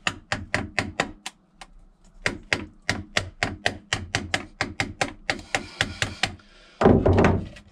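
A hammer rapidly tapping a screwdriver into the bottom of a steel spin-on oil filter to punch a drain hole, about four to five sharp metallic knocks a second, with a brief pause about a second and a half in. A louder, rough scraping noise comes near the end.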